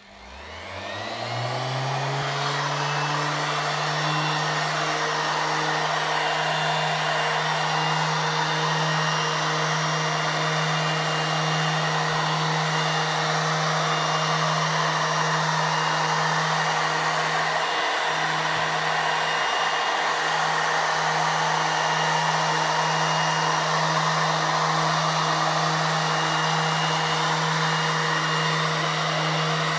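Electric random orbital sander with a fleece buffing pad starting up, its whine rising in pitch over the first second or two, then running steadily while buffing a waxed wooden tabletop.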